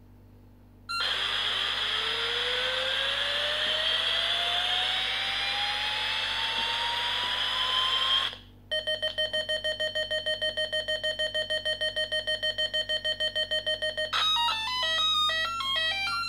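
The Fisher-Price Alpha Probe toy's electronic sound board playing its effects through its small speaker, starting about a second in. First comes a hissing rush with rising whines for about seven seconds, then a fast pulsing beep at about seven beeps a second, then a quick tune of stepping electronic notes. The effects only fire when the buttons are pressed hard on their dirty contacts.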